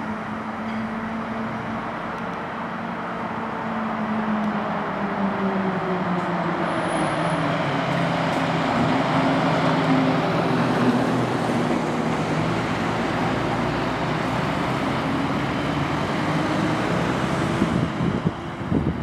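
Fire engines and an ambulance driving past in traffic: heavy diesel engines and tyre noise, the engine notes sliding in pitch as the vehicles go by, louder from about four seconds in.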